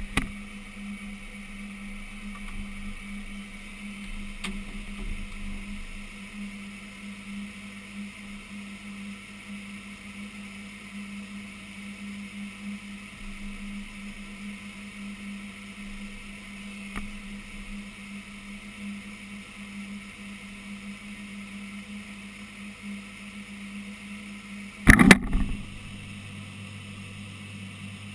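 Woodworking CNC router running with a steady machine hum, heard from inside its enclosure. About 25 seconds in comes a short, loud clatter of several strokes as the spindle head moves over the tool holder on the tool changer.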